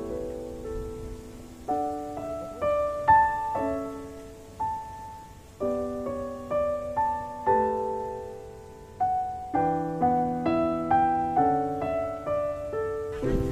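Background piano music: a slow, gentle melody of single struck notes over sustained chords.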